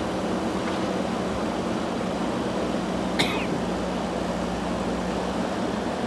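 A JCB 3DX backhoe loader's diesel engine running steadily. A brief sharp sound comes about three seconds in.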